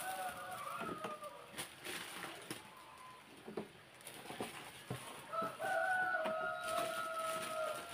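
A rooster crowing twice: one long crow dies away about a second and a half in, and a second long crow starts about five and a half seconds in. Light rustles and clicks of plastic bags and a plastic crate being handled.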